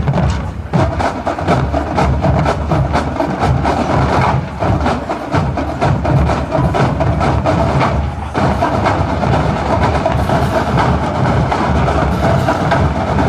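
Massed bands playing together, sustained band tones over drums and percussion hitting throughout.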